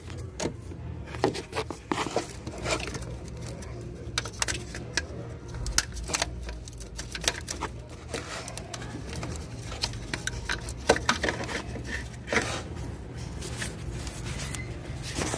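Irregular clicks, knocks and scrapes of hands and tools working on a car's wiring harness and connectors under the hood, over a steady low hum.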